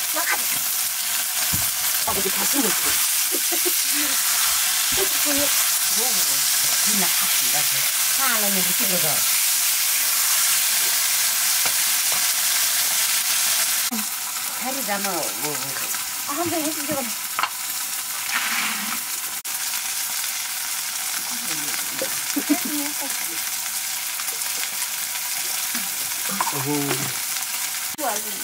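Small fish and leaves sizzling as they fry in hot oil in an iron wok over a wood fire. It is a steady hiss that drops a little in level about halfway through.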